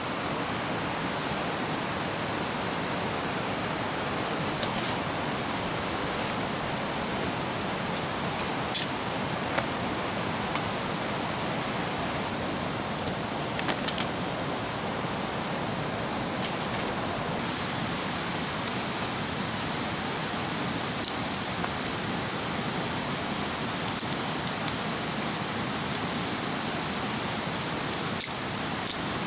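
Steady rushing of flowing water, with a few short clicks and clinks scattered over it.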